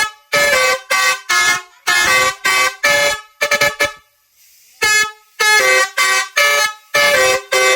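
Basuri V4 telolet horn playing its melody: a quick string of short, pitched toots that jump between notes, with one brief pause a little past halfway.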